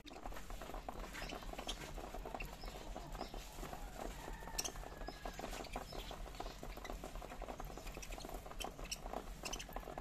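A flock of budgerigars feeding at a seed tray: a steady run of many small, quick clicks and ticks from beaks pecking and cracking seed, with a faint short chirp about four seconds in.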